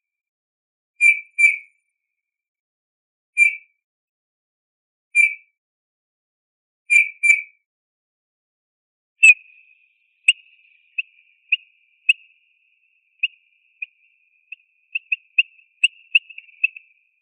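Eurasian bullfinch giving soft piping whistled calls, single or in pairs about every two seconds. About halfway through they give way to a quicker run of short, quieter notes.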